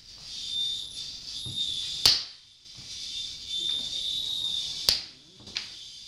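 A belt's strap end whipped against a hard surface: two sharp cracks about three seconds apart, then a fainter smack near the end. Behind them runs a high, hissy electronic drone that comes and goes.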